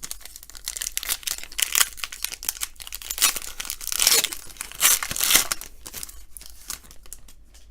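Panini Status trading-card pack wrapper being torn open and crinkled: an irregular run of ripping and crackling, loudest in the middle, trailing off into lighter handling near the end.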